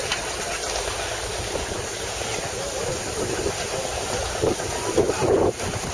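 Steady hiss and low rumble among idling steam traction engines, with wind buffeting the microphone and a few louder gusts near the end.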